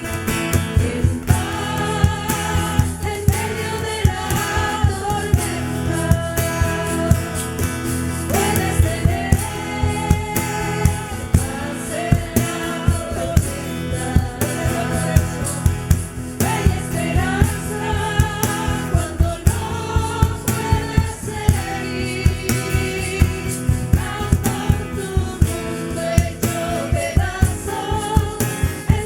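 Christian worship song: voices singing held, wavering melody lines over a band, with a steady drum beat.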